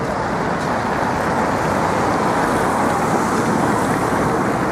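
Steady city street noise of passing car traffic, with wind rushing over the microphone.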